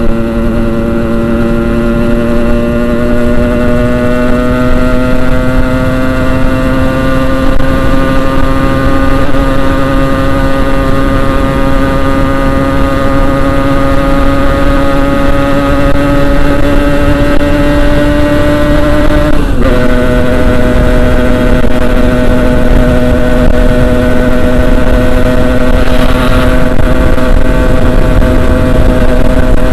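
Yamaha RX-King two-stroke motorcycle engine running under way, its pitch climbing slowly as it pulls in gear. About two-thirds of the way through, the pitch drops sharply at a gear change, then holds steady. A loud rushing noise runs underneath.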